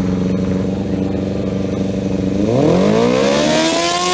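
Stationary motorcycle engine held at high revs with a steady note. About two and a half seconds in it is revved harder, its pitch climbing and then holding higher, while its exhaust glows hot.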